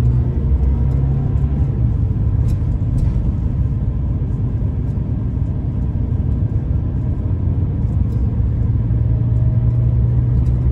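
Scania K340EB4 coach heard from inside the passenger cabin while driving: a steady drone of engine and road noise. The low engine note eases after a couple of seconds and strengthens again near the end.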